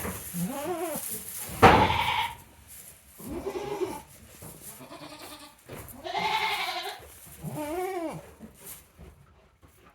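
Goats bleating: about five separate bleats, each shorter than a second and bending up and down in pitch, the loudest about two seconds in.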